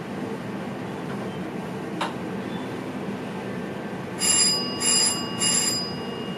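Steady running noise of a VIRM electric train heard from the driver's cab. About two thirds of the way in, a bell strikes three times in quick succession, each stroke ringing on briefly.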